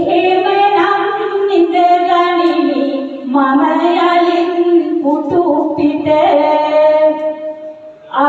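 A woman singing Sinhala verse (kavi) into a microphone in long, drawn-out held notes, moving to a new phrase about three seconds in and again about five seconds in.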